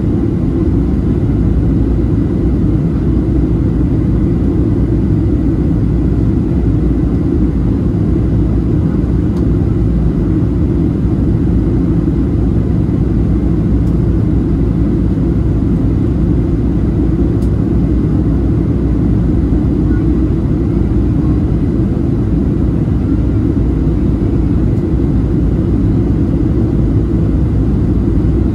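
Deep, steady cabin roar inside a Boeing 737-700 in flight: the hum of its CFM56-7B turbofan engines mixed with air rushing past the fuselage.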